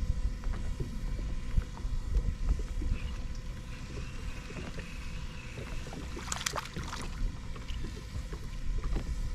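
Wind rumbling on the microphone aboard a small fishing boat, with scattered light knocks and a brief sharp rattle about six and a half seconds in.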